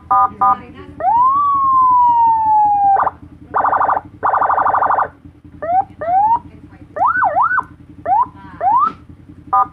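Senken electronic vehicle siren demonstrated through its tones. It gives a few short beeps, then a long wail that rises and slowly falls, then a fast buzzing warble about three seconds in. After that come a string of quick rising yelps, and more short beeps near the end.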